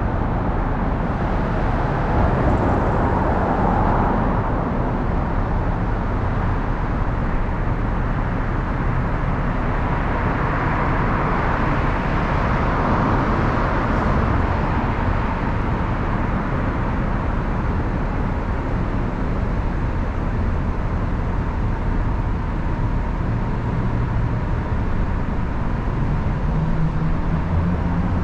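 Steady low rumble of traffic in a covered lower-level street, with a swell as a vehicle passes about three seconds in and a longer one around ten to fourteen seconds in.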